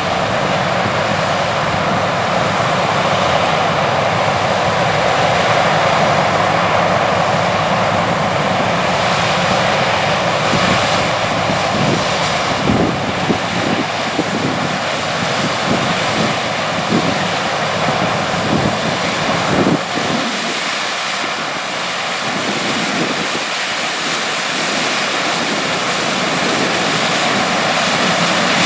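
New Holland CR8090 combine running steadily while harvesting corn, a continuous loud machine drone with a few brief knocks in the middle.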